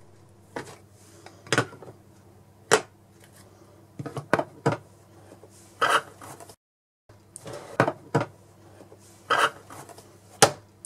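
Round plastic watercolour palettes and a spiral sketchbook set down one by one on a wooden tabletop: a series of about a dozen sharp clacks and taps, over a steady low hum.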